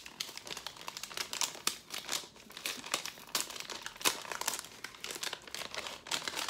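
Kraft-paper envelope being handled and opened, the paper crinkling with many irregular crackles as a hand reaches inside.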